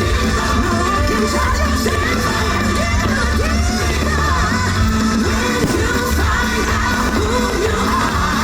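Fireworks-show soundtrack played loud: music with voices singing over a steady deep bass.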